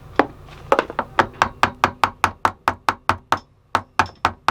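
Rapid, even tapping, about four to five strikes a second, as a new rudder-mount bearing is driven deeper into its housing with a screwdriver; the bearing is a tight fit and reluctant to go in.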